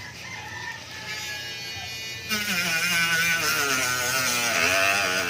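Small handheld electric power tool working on carbon fiber during trimming and sanding. A faint whine slides slowly down in pitch at first; about two seconds in the tool runs much louder, its pitch wavering as it bears on the work.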